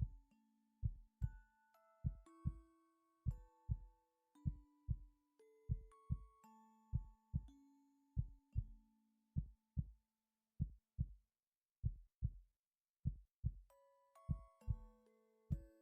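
A human heartbeat: a slow, steady lub-dub, two low thumps per beat, roughly one beat every second and a bit. Soft background music with ringing melodic notes plays over it and drops away for a few seconds in the middle.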